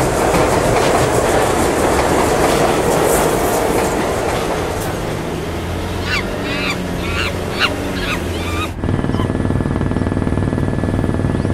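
A New York subway train rushing past a station platform, then a short run of about six goose calls, then a sudden cut near the end to a steady helicopter drone.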